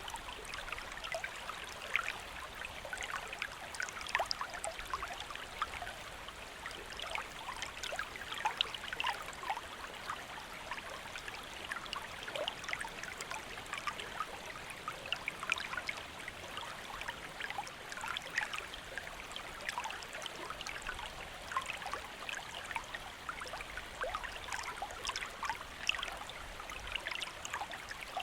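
Shallow stream flowing steadily, with constant splashing and gurgling over rocks.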